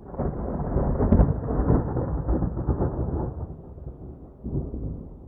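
Rolling thunder rumbling, loudest over the first three seconds, with a second swell near the end before it fades.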